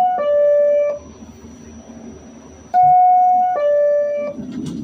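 R46 subway car's PA-5 door chime sounding its two-note falling ding-dong twice, the warning that the doors are about to close.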